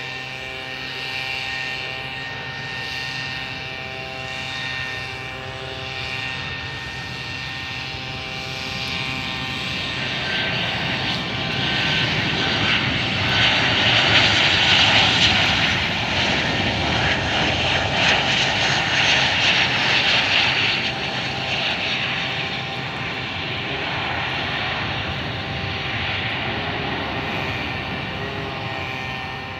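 Boeing 737-800's CFM56-7B jet engines on a landing approach: a steady whine with several fixed tones, swelling into a loud roar about halfway through as the airliner passes close by, then easing off as it rolls out down the runway.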